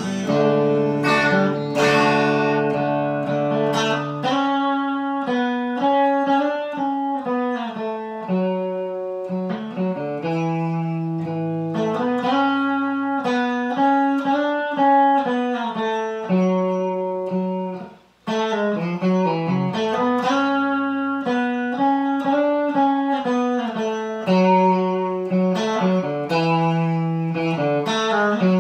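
Electric guitar playing a slow instrumental melody, mostly single notes at a few a second, with one brief break about two thirds of the way through.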